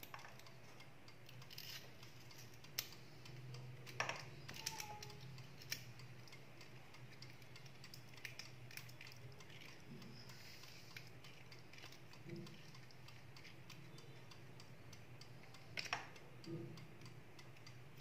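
Faint, scattered clicks and small metal taps from handling a Zippo lighter insert while its flint is replaced, over a low steady hum.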